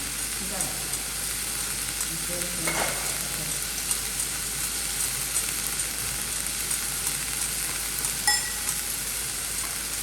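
Food sizzling in a hot stainless-steel pan while it is stirred. A utensil clinks against the pan about eight seconds in, with a short metallic ring.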